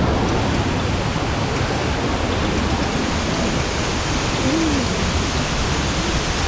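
A mountain waterfall rushing and splashing over boulders, heard close up as a loud, steady roar of water.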